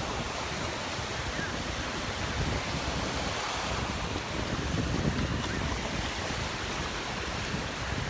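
Surf washing onto a beach in a steady wash of noise, with wind rumbling on the microphone.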